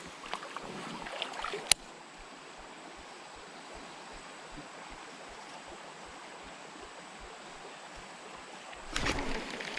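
Steady rushing of a creek in high water, with a few light clicks and one sharp click about two seconds in. Near the end comes a louder splashing burst, a fish striking at the topwater bird lure on the surface.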